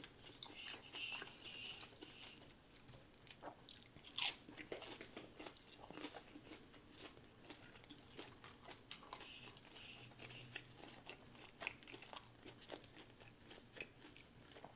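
Close-miked chewing and biting of McDonald's food: faint wet mouth clicks and small crunches, with one louder bite about four seconds in.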